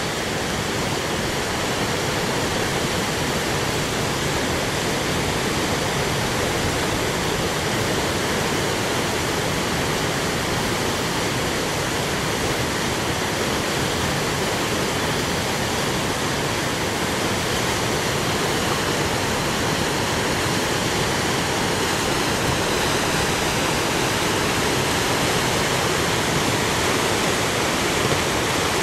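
Whitewater rushing through a concrete canoe slalom channel: a steady, unbroken rushing of rapids.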